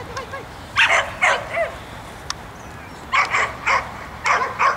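A dog barking in three quick runs of two or three barks each, about eight barks in all.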